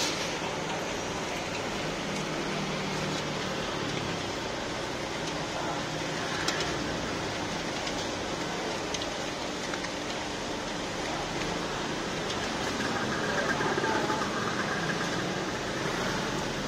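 Chestnuts and hot stones churning in a large steel roasting pan, a steady rough rattling hiss, with a single click about six seconds in.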